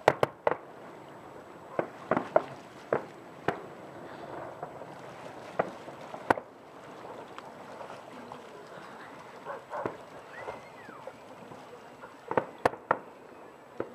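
Distant aerial firework shells bursting in sharp, irregular bangs: a quick cluster at the start, several more spread over the next six seconds, then a gap and another quick cluster near the end.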